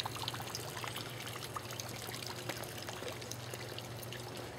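Garden pond water feature: water pouring and trickling steadily over rocks into the pond, with scattered small splashes.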